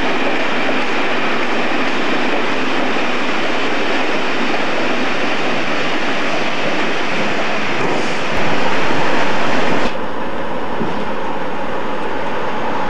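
Multiple-unit passenger train running into the platform, a steady rumble and hiss with no clear wheel rhythm. Just under ten seconds in the sound cuts off suddenly to the steadier running noise of a train heard from inside the cab.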